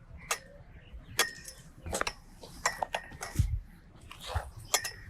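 A series of separate sharp clicks and knocks, about six spread irregularly over a few seconds.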